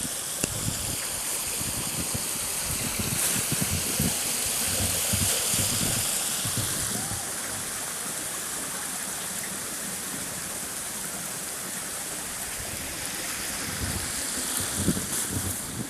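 Blizzard wind blowing as a steady rushing noise, buffeting the microphone with low rumbles, swelling a little a few seconds in.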